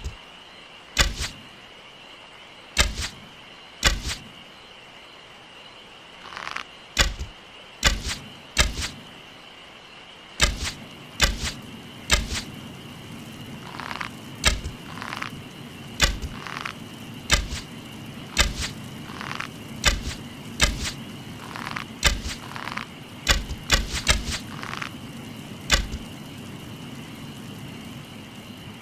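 Bow-and-arrow sound effect: a long series of sharp snaps, one every second or two and coming faster after about ten seconds, several led by a short swish. A steady high hum runs underneath, and a low rumble joins about a third of the way in.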